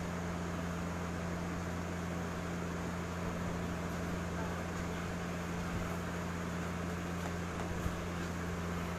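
Steady low mechanical hum, with a couple of faint short knocks in the second half.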